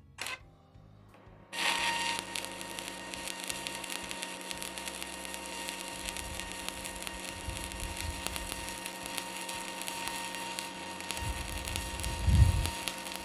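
Stick (SMAW) arc welding with a 2.4 mm electrode at about 85 amps. The arc strikes about a second and a half in, then crackles steadily with a faint hum underneath and no break, the rod not sticking. A short low thump near the end.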